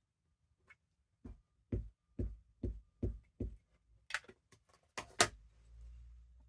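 Rubber stamp tapped on a desk during stamping: about six dull thumps, roughly two a second, then two sharper clacks near the end, the second one the loudest.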